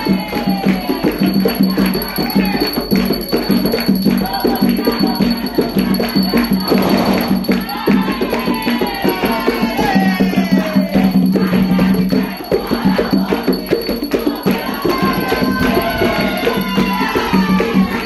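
Afro-Brazilian ritual music: atabaque hand drums beating a steady, fast rhythm under hand-clapping, with a group singing a ponto chant.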